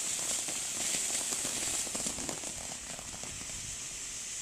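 Ground fountain firework spraying sparks: a steady high hiss with dense crackling that thins out after about two seconds.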